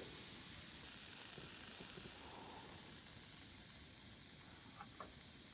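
Faint, steady sizzling of food cooking over a camp stove, with a couple of soft clicks near the end.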